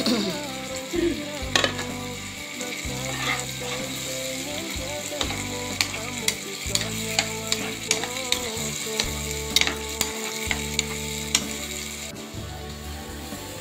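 Blended chili spice paste sizzling as it fries in a pan, stirred with a metal spatula that clicks and scrapes against the pan many times.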